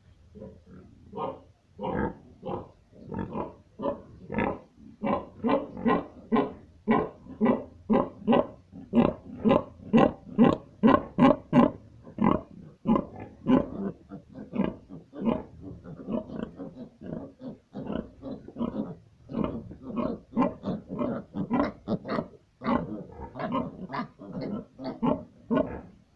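Pigs grunting in a quick, steady run of short grunts, about two a second, loudest about halfway through.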